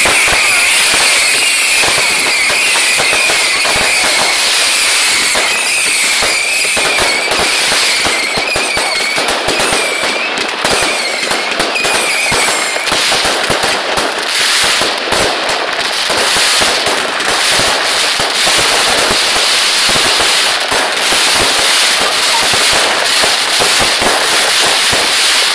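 A fireworks barrage going off without a break: dense crackling with many sharp pops and bangs. A high wavering whistle runs through the first half and stops about halfway, after which the crackling carries on alone.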